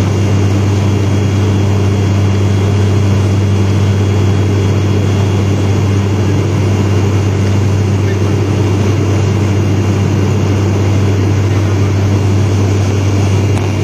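Steady drone of an ATR 72 turboprop airliner's propellers and engines heard from inside the cabin: a deep even hum with a fainter tone above it, over a wide rush of air noise.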